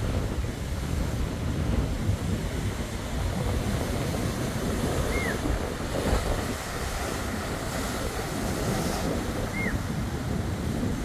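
Rough sea surf breaking and washing over a rocky shore, with strong gusty wind rumbling on the microphone.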